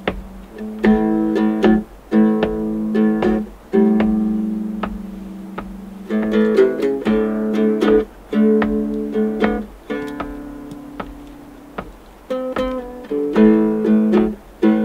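Small acoustic guitar strummed, chords played in short phrases with brief stops between them.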